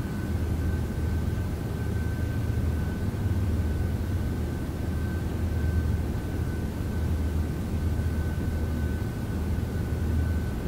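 Steady low rumbling hum with a thin, steady high tone over it, unchanging throughout.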